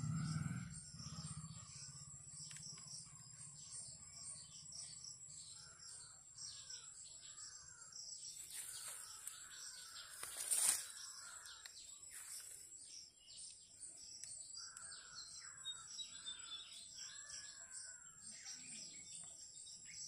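Faint outdoor ambience of several birds chirping and calling over a steady high-pitched whine, with a short burst of rustling noise about ten seconds in.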